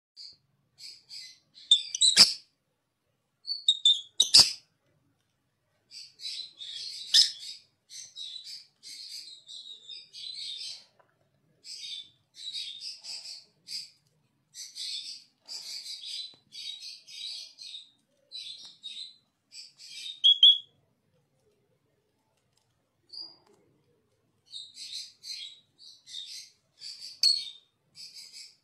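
Two small pet parrots chattering and chirping in rapid, high-pitched bursts as they squabble over a plastic ring, with two sharp clicks near the start. The chatter breaks off for a few seconds past the middle, then resumes.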